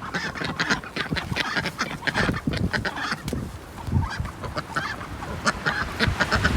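Domestic ducks calling, a rapid, irregular run of many short honking quacks.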